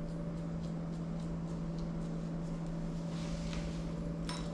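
Electric clipper running with a steady hum, then a faint click near the end.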